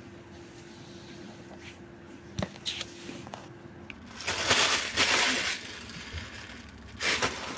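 Handling noise from a phone being picked up and moved: loud scraping rustles against its microphone about four seconds in and again near the end. Before that there is a faint steady hum and a single click.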